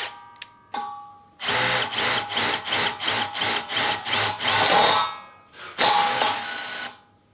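Milwaukee M12 FID2 brushless cordless impact driver driving a sheet-metal screw in its auto-stop screw mode: a brief motor whine, then about three and a half seconds of rapid impact hammering, and a second shorter burst of hammering near the end. The owner finds the auto-stop not very sensitive with these roofing screws.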